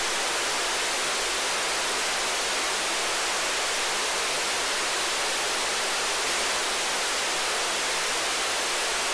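Steady, even hiss of analog TV static from a dead channel, with a faint low hum underneath: no signal is being received. It cuts off abruptly near the end.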